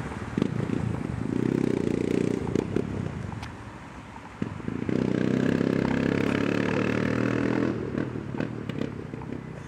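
Yamaha MT-03 motorcycle with a Takkoni aftermarket exhaust silencer, accelerating hard in two spells with a break about four seconds in. Irregular crackling pops from the exhaust near the start and near the end.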